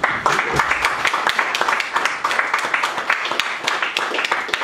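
Audience applauding: many hands clapping, starting suddenly and keeping up steadily.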